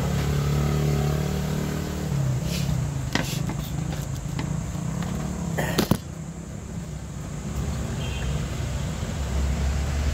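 A motor vehicle's engine running, its low hum shifting and sliding down in pitch, with two sharp clicks about three and six seconds in.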